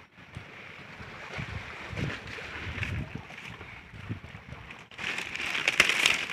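Dry grass and fronds rustling and crackling close to the microphone as someone moves among rocks, with wind buffeting the microphone; the rustling grows louder and busier about five seconds in.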